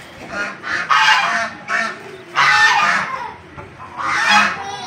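Domestic white geese honking, about five loud calls at uneven intervals, one of them drawn out longer than the rest.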